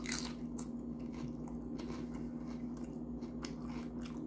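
Close-up chewing of a mouthful of Doritos tortilla chips with taco toppings: a loud crunch as the bite goes in, then irregular softer crunching. A steady low electrical hum runs underneath.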